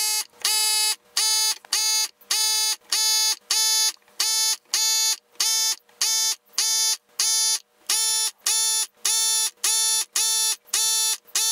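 Electronic beeper sounding a steady, buzzy beep over and over, about two beeps a second, each a bit under half a second long.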